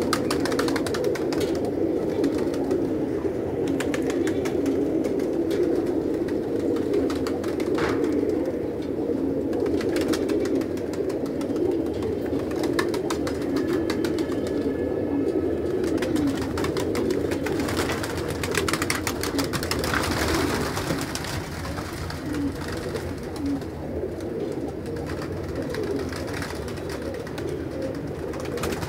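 A large flock of domestic pigeons cooing continuously in a dense, overlapping chorus, with wings flapping now and then as birds take off and land.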